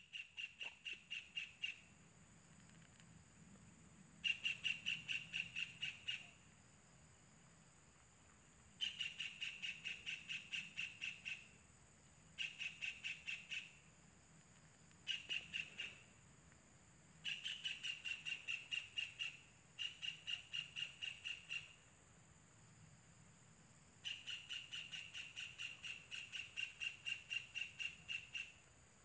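Kingfisher nestlings calling in quick rattling bouts of about seven high notes a second. Each bout lasts one to two and a half seconds and comes again every few seconds, about eight bouts in all.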